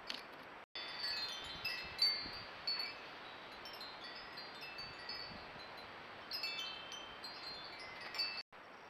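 Scattered high ringing notes in irregular clusters, several pitches at once, with a couple of soft knocks about two seconds in.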